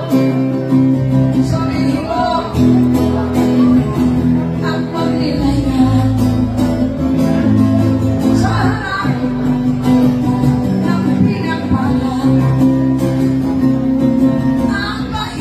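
Live acoustic guitar music played through a PA, with a woman singing over it.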